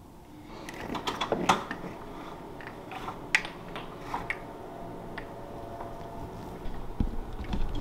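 Horizontal window blinds being handled: slats clicking and rattling in a scattered series of light clicks.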